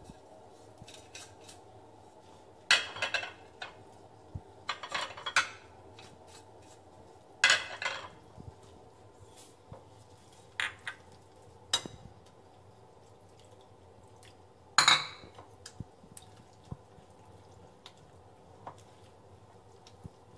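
Batter being stirred in a ceramic mixing bowl: scattered clinks and scrapes of a utensil against the bowl, with a handful of louder clatters spread through the stirring.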